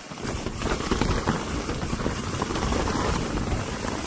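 Wind buffeting the action-camera microphone as a mountain bike rolls fast down a dirt trail, with tyre noise from the dirt and light rattles from the bike.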